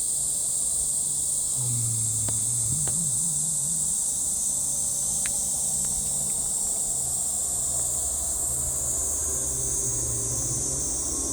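Cicadas singing in a continuous high-pitched drone that does not let up, with a faint low hum underneath.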